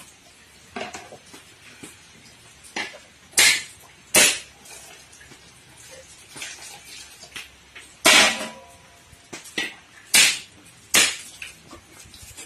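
A knife struck against a coconut shell to crack it open: a handful of sharp, irregularly spaced knocks, the loudest about three, four, eight, ten and eleven seconds in, with lighter taps between.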